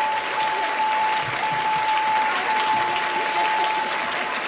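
Studio audience applauding after a correct guess, with a single steady high tone held through it that stops near the end.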